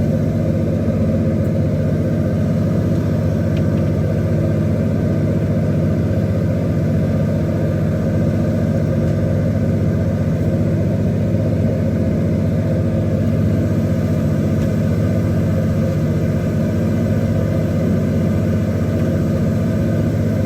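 A fishing boat's engine running with a steady drone and a constant low hum that does not change.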